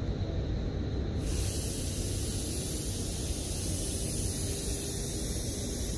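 Steady low rumble of a stopped CPTM Série 2100 electric train, with a loud hiss of compressed air venting that starts suddenly about a second in and keeps going.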